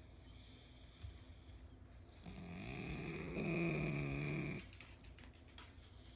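Elderly pug snoring in deep sleep: faint breathing, then from about two seconds in one loud, buzzy snore lasting a couple of seconds, growing louder in its second half and stopping abruptly, followed by quieter breathing.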